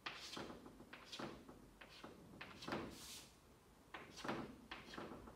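Chalk on a blackboard: about ten short, irregularly spaced strokes, each starting with a tap and trailing into a brief scrape, as vertical lines are drawn down the letters.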